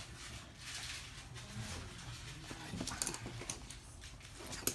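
Toy poodles moving about on a wooden floor: light scuffling and a few small claw taps.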